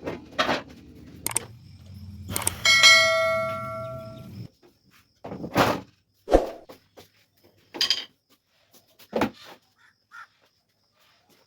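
A sharp metallic strike about two and a half seconds in rings on for a second or so, over a low hum that cuts off suddenly a couple of seconds later. Several separate knocks follow.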